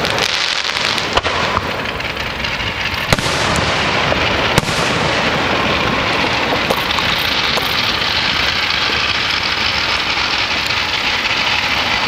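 Fireworks display: three sharp bangs of bursting aerial shells in the first half, over a continuous dense crackle that grows louder in the second half.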